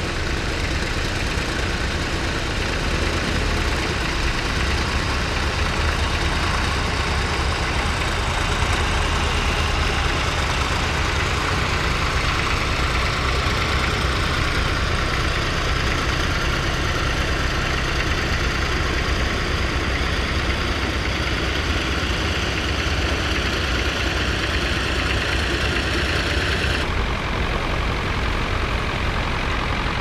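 A vintage tractor engine running steadily while it pulls a plough through the field. The higher hiss above the engine note drops away suddenly near the end.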